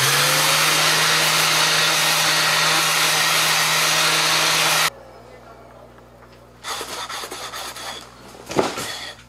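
Handheld random orbital sander with a dust-extraction hose running as a padauk marimba bar is pressed against its pad: the motor spins up with a rising hum at the start, runs loud and steady, and is switched off abruptly about five seconds in. A quieter scuffing sound follows a couple of seconds later.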